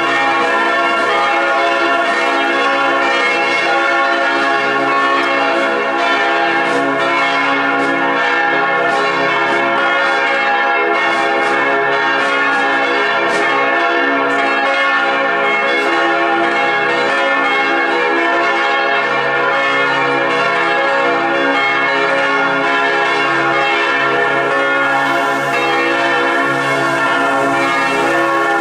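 Church bells ringing steadily, several bells sounding together without a break.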